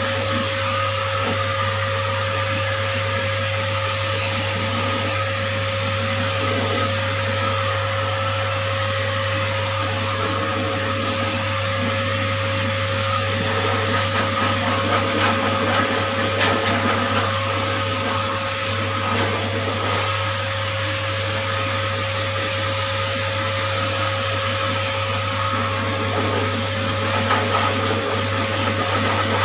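Pet grooming forced-air dryer blowing through its hose onto a dog's coat: a steady rush of air with an even motor whine and low hum that never changes.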